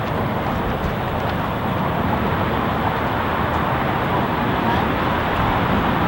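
Steady road-traffic noise from the elevated bridge roadway, an even, unbroken rush.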